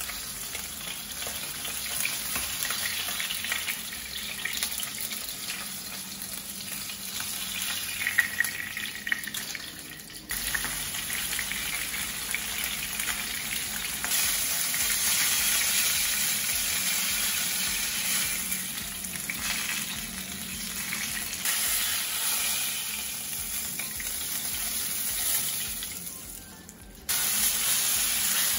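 Hairtail pieces shallow-frying in hot oil in a pan, with a continuous sizzle. It steps up louder about ten seconds in and again near the end.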